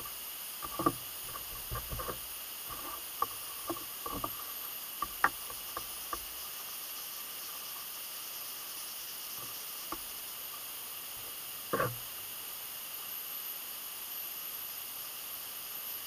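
Leather knife sheath being handled and rubbed with a cloth as mink oil is worked into it: scattered light clicks and knocks, mostly in the first third, with a louder knock about three quarters of the way through, over a steady background hiss.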